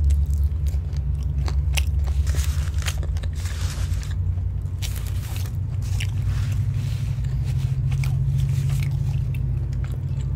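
Close-miked biting, crunching and chewing of crispy cheese-seasoned Korean fried chicken, with many short crunches. Under it, a steady low rumble from a passing train.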